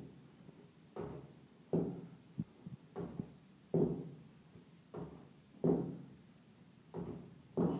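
A woman's heavy, forceful breathing through a set of weighted squat reps: short sharp breaths about once a second, coming in pairs roughly every two seconds.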